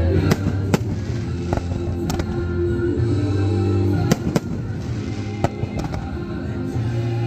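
Aerial firework shells bursting in a series of sharp bangs, about eight of them spread irregularly, two close together about four seconds in. Music with long held low notes plays underneath.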